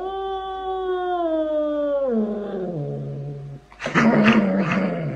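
A hairless cat yowling: one long, drawn-out meow that rises at the start, slowly falls, then sinks to a low moan. A quick run of short, rougher yowls follows near the end.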